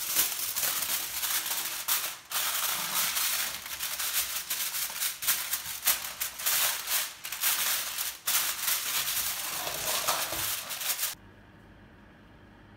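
Sheet of aluminium foil crinkling and rustling as it is laid over a baking dish and pressed down by hand, with many sharp crackles. It stops suddenly about eleven seconds in, leaving only a faint steady low hum.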